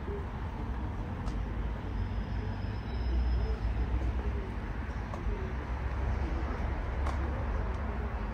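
Low rumbling outdoor background noise, with a few faint clicks.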